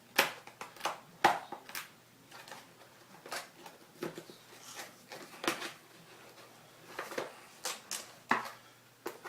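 Tablet box and packaging being handled: irregular crackles, rustles and light taps, with a few sharper clicks.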